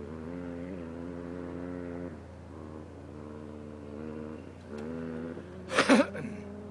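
An off-road vehicle's engine running at fairly steady revs as it fords the flooded creek, dropping away about two seconds in and picking up again. A short, loud burst near the end is the loudest sound.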